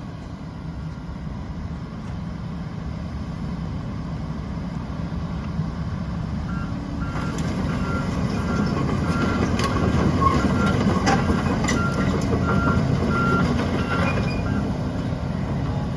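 Heavy diesel machinery, an excavator at work, running steadily and growing louder, with a reversing alarm beeping evenly from about six seconds in until near the end and scattered metal clanks as the trailer is torn apart.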